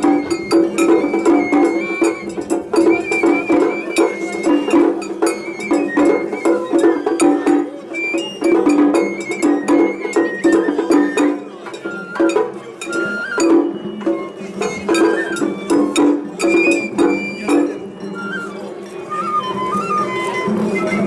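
Japanese matsuri-bayashi festival music: a high bamboo flute melody moving in steps over rapid, steady drum strikes.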